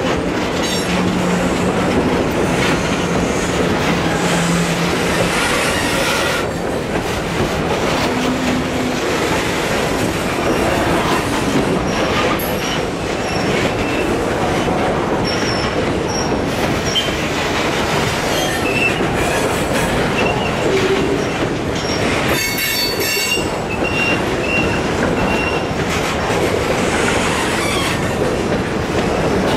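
Freight train of boxcars rolling past at trackside: a steady rumble and rattle of steel wheels over the rails, with short high-pitched wheel squeals now and then, mostly in the second half.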